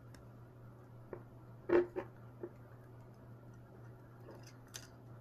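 Faint handling sounds of a wire crimper and crimp connectors being worked onto thermal fuse wires: a few light clicks and rustles, the loudest just under two seconds in, over a low steady hum.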